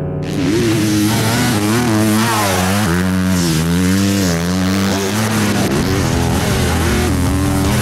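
Motocross dirt bike engine revving hard, cutting in abruptly just after the start, its pitch repeatedly rising and falling as the throttle is opened and chopped.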